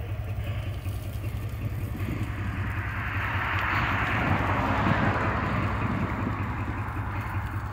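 Pickup truck engine idling with a steady low rumble, while a rushing noise swells and fades over a few seconds in the middle.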